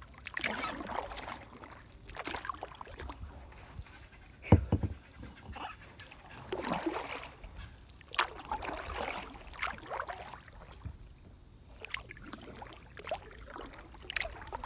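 Kayak paddle strokes splashing in river water, one roughly every two seconds, with a sharp knock about four and a half seconds in.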